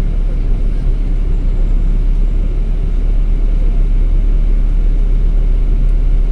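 Interior noise of a LiAZ 5292.22 city bus on the move: a steady low engine drone mixed with road rumble, heard from a passenger seat.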